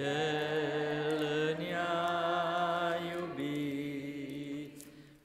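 Church congregation singing a slow hymn refrain in long held notes with several voices together, moving to new notes twice.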